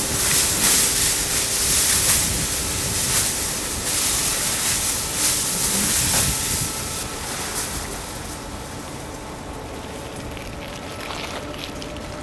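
A sheet of silver foil rustling and crackling as it is swung and flapped through the air, in uneven swishes; it dies down about eight seconds in, leaving a quieter steady background.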